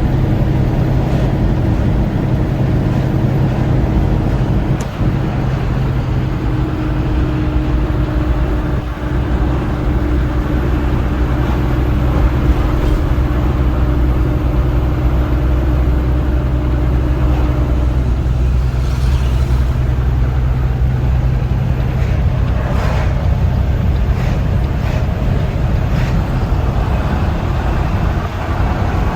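Vehicle engine running steadily at cruising speed with road noise, heard from inside while driving on a highway.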